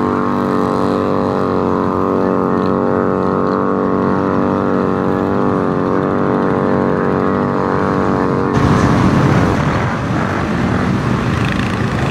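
Polaris RZR side-by-side's engine held at high, steady revs as it churns through deep mud and water. About eight seconds in it gives way to a rougher, lower, noisier engine rumble.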